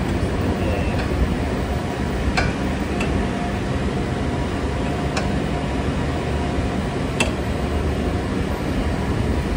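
Steady hum of garage background noise, with four short sharp clicks spread through it as hands work the hub and steering knuckle of a car's front suspension.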